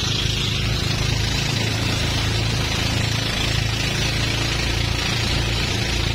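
Outrigger boat's engine running steadily with a low hum, over a steady hiss of wind and water.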